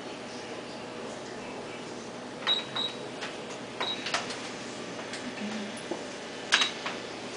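Ultrasound scanner's control panel: a few short key clicks with brief high beeps, scattered over several seconds, as images are frozen and measured, over a steady faint hiss.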